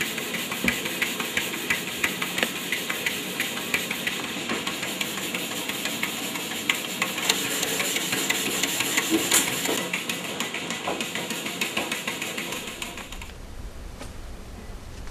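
Grain mill running, with ground meal pouring into its bin: a steady rushing clatter of fast, irregular clicks and knocks that stops about 13 seconds in.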